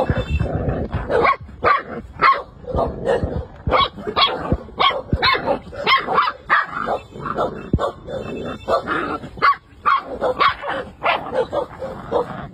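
Puppies play-fighting, giving a steady stream of short high yips and small barks, several a second.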